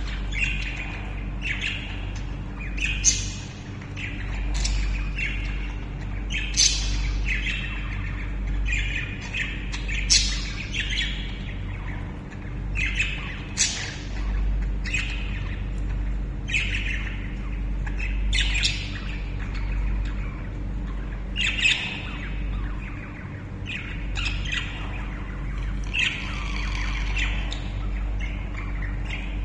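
Caged budgerigars calling with short, sharp squawks and chirps, one every half second to second, over a steady low hum.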